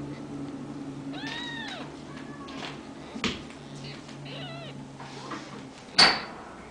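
Newborn Ragdoll kittens mewing: a few short, high cries that rise and fall in pitch, the clearest about a second in. Near the end a sharp knock, the loudest sound.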